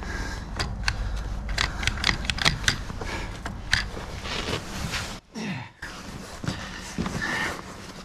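Sharp metallic clicks, ticks and scrapes of a clamp tool being worked on stiff hydraulic quick-connect couplers, over a low steady hum.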